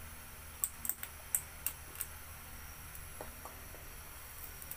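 Sugar melting in a hot, dry stainless-steel wok, giving off small sharp ticks and crackles: several in the first two seconds, then fewer and fainter, over a low steady hum.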